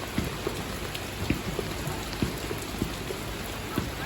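Rain falling steadily, with heavier drops tapping irregularly, a few times a second.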